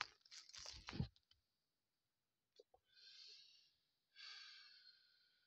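A man smoking a cigarette breathes out in two long, faint sighs, the second fading slowly. Before them come some short handling knocks in the first second and two soft clicks.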